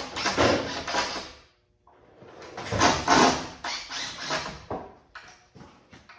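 Scraping and clattering of objects being moved and handled, in two stretches with a short pause between them, then a few light knocks near the end.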